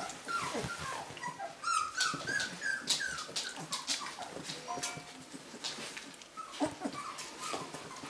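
Four-week-old puppies crying as they play: many short high-pitched squeaks and yips, several sliding down in pitch, scattered throughout.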